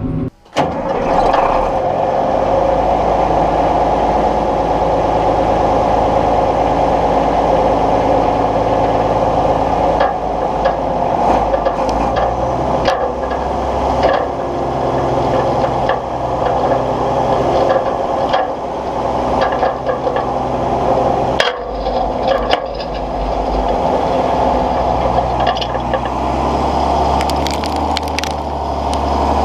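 Farm tractor engine running steadily under work, with scattered sharp cracks and rattles from the machinery.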